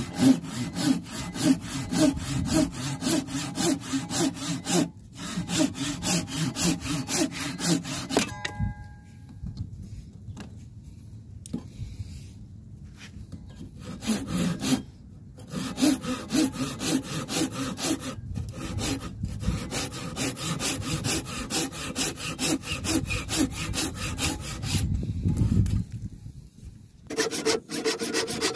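Japanese-style pull saw cutting wood in quick, even back-and-forth strokes. The sawing stops for several seconds about a third of the way in, then starts again.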